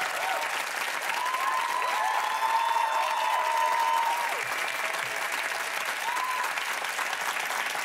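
Studio audience and panel applauding steadily, with a few drawn-out cheers in the first half.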